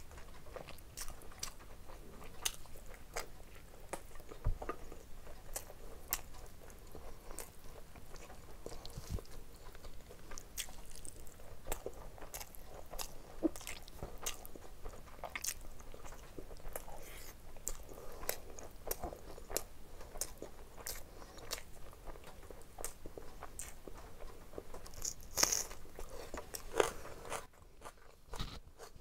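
A person chewing and biting mouthfuls of curry and rice eaten by hand: a steady run of short, crisp mouth clicks and crunches, with a few louder ones near the end.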